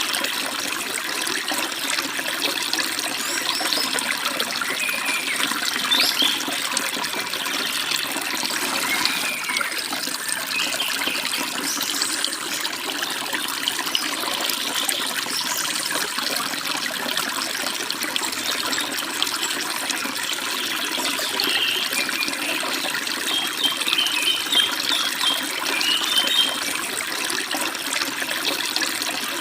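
Forest stream babbling and splashing steadily over small falls, with birds chirping above it, in short clusters a few seconds in and again near the end.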